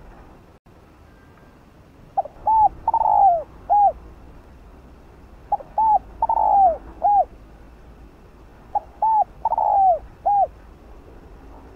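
Spotted dove cooing: three calls about three seconds apart, each a short run of rounded coo notes with a longer, louder note in the middle that slides down in pitch.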